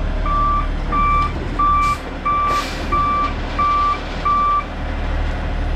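Heavy vehicle's backup alarm beeping about seven times, roughly one and a half beeps a second, over a steady engine rumble; the beeping stops a little past halfway and the engine keeps running. Two short hisses come in the middle of the beeping.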